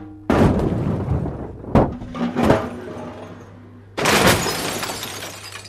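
A run of loud crashes and smashing: sudden hits come about a third of a second in, just before two seconds, at two and a half seconds and at four seconds. Each one fades away afterwards, over a low steady hum.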